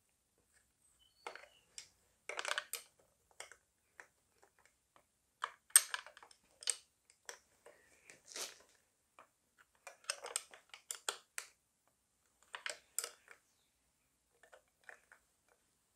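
Small ratchet wrench clicking in short bursts while it tightens the carburettor mounting bolts on an outboard motor, with a few metal clinks of the tool between the bursts.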